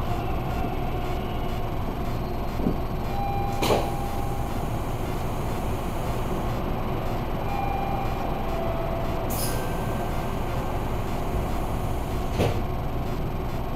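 Toronto subway train heard from inside the car, with a steady low rumble as it slows to a stop at the station platform and then stands. A few short faint squealing tones and three sharp clicks are heard along the way.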